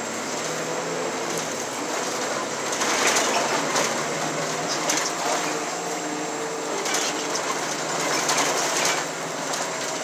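Interior noise of a moving city bus: a steady engine hum and road rumble, with a few louder rattles.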